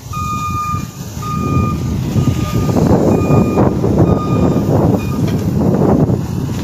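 Reversing alarm beeping about once a second, each beep about half a second long, stopping a little past five seconds in. A loud low rumbling noise builds up under it after about two seconds.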